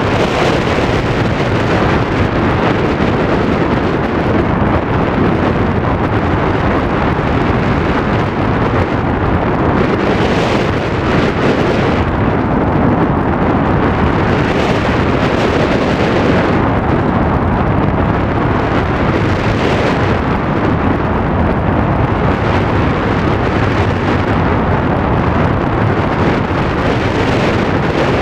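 Loud, steady rush of wind over the microphone in flight, swelling in gusts a few times.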